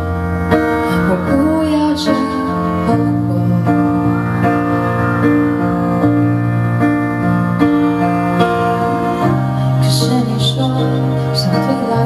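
Piano-led ballad backing track with sustained chords, and a woman singing along into a handheld microphone at the start, pausing through the middle while the accompaniment carries on, then singing again near the end.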